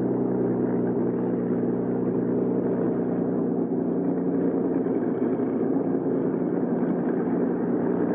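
Bell P-39 Airacobra's Allison V-12 engine running steadily at low taxiing power, a constant drone with no change in pitch.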